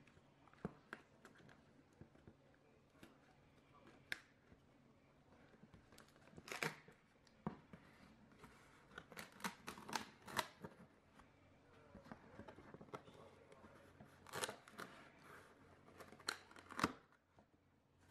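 Quiet, irregular clicks and short scrapes of a utility knife slicing along the packing tape on a cardboard box, with the cardboard being handled as the box is opened.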